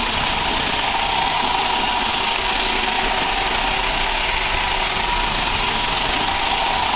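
Roomba robot vacuum running steadily: an even whirring hiss with a steady whine.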